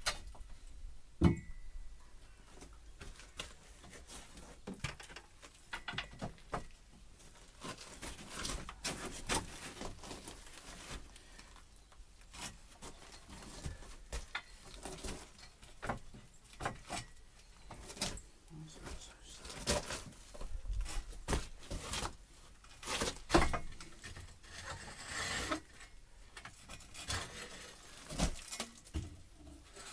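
Wooden arch formwork being worked loose and taken down from under a stone arch: irregular knocks, clicks and scraping of timber, with a sharp knock about a second in and another loud one about three quarters of the way through.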